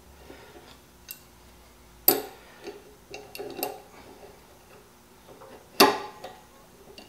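Adjustable wrench clicking against the air compressor's regulator fitting as it is repositioned and turned to tighten the regulator: a few sharp metal clicks, the two loudest about two seconds in and near the end.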